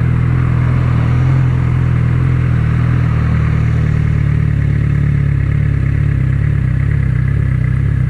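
Suzuki GSX650F inline-four motorcycle engine running at a steady, low speed.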